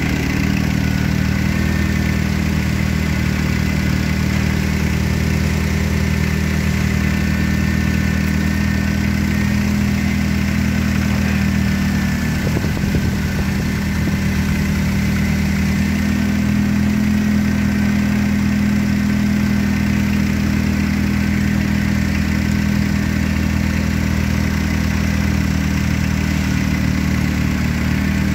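Nissan QG18DE 1.8-litre inline-four petrol engine idling steadily, with no change in speed. A few brief clicks sound about halfway through.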